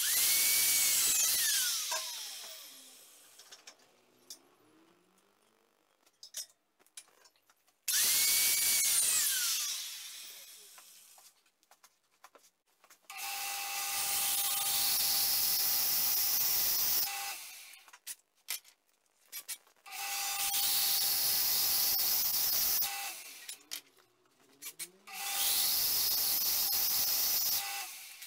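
Power tools on steel: an electric angle grinder spins up and winds down twice, then a motor runs in three steady stretches of three or four seconds, each with a hissing grind of metal and a steady whine.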